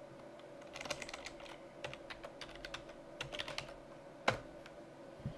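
Computer keyboard typing, a password entered in quick bursts of keystrokes, with one louder click about four seconds in. A faint steady hum runs underneath.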